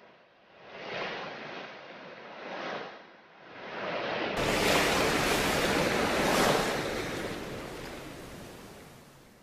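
Ocean surf: waves washing in as slow swells of rushing noise, with a louder wave about four seconds in that slowly fades away.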